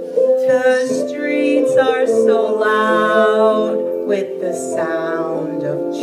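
A woman singing over instrumental backing music, holding one long note about three seconds in.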